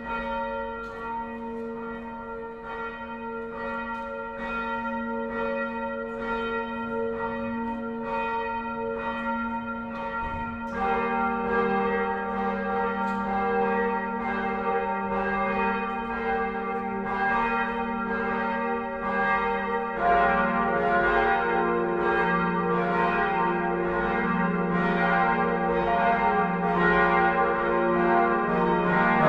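Church bells of the Neumünster collegiate church in Würzburg ringing a peal. One bell rings alone at first. A deeper bell joins about ten seconds in and a deeper one again about twenty seconds in, each struck over and over, so the sound grows fuller and louder.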